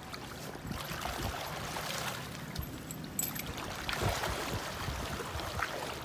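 Water sloshing and splashing around a person's legs as they wade through shallow river water in waders, with an uneven splash at each step.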